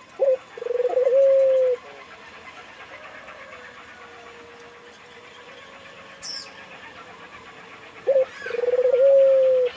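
Puter (Barbary dove) cooing: two calls about eight seconds apart, each a short sharp note followed by a long, steady held coo.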